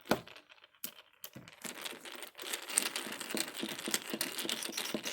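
A screwdriver working the case screws of a mortise lock body: a few separate clicks at first, then from about two seconds in a steady run of rapid light metal clicking and rattling.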